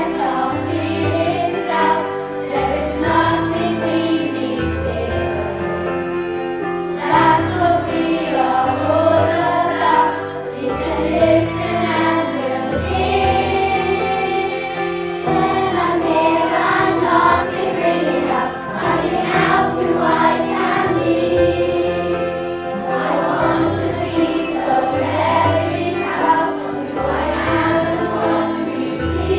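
A children's choir singing a song together over an accompaniment with a moving bass line.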